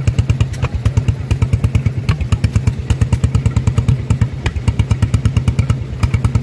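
1931 Hamworthy 4 hp two-stroke paraffin oil engine running steadily at speed with a fast, even exhaust beat, driving a centrifugal pump.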